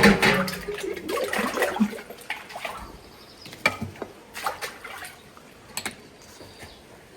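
Water rushing loudly for about two seconds, followed by a few scattered knocks and clatters.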